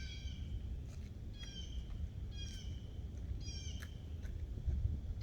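An animal calling repeatedly: short, pitched calls about once a second, five in all, over a low steady rumble.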